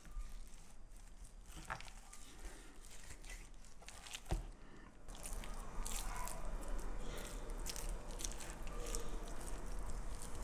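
Knife cutting into a raw lamb leg and fingers working the cut slices, wet squishing with many small clicks, busier in the second half; a single sharp knock about four seconds in.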